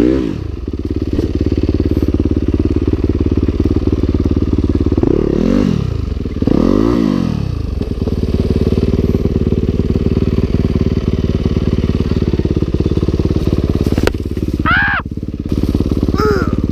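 Dirt bike engine running steadily under the rider, with two quick rev rises and falls about five and seven seconds in, and a sharp rev up and back down near the end.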